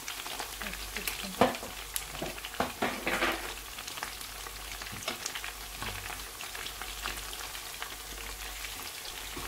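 Pre-boiled chicken pieces frying in hot oil in a pan: a steady sizzle full of crackles and pops, with a few louder pops in the first few seconds.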